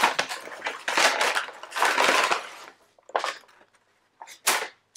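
Paper bag and plastic craft packaging crinkling and rustling as they are handled, in a dense run of crackles that thins to a few short rustles in the second half.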